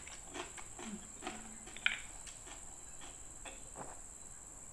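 Plastic water bottle being twisted open and handled: a string of small clicks and crinkles with one sharper snap about two seconds in, then drinking from the bottle near the end. A steady high-pitched hum runs underneath.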